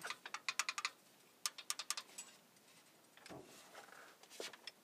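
Faint, quick runs of light clicks and taps from a gloved hand handling parts on the open valve train and injector area of a Cummins 5.9 diesel: about eight rapid clicks in the first second, another handful around a second and a half in, then soft rustling and taps near the end.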